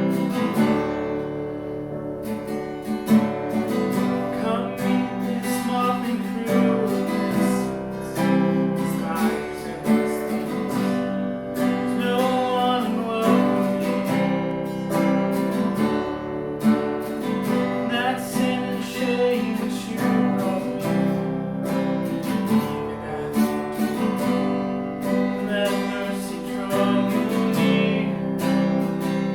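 Live worship music: a strummed acoustic guitar playing a song, with singing over it.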